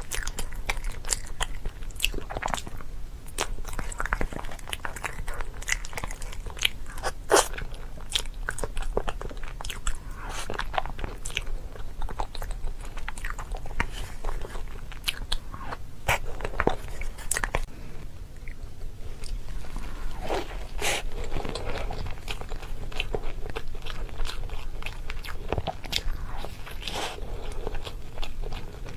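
Crunchy food being bitten and chewed close to the microphone, with irregular crisp crunches throughout.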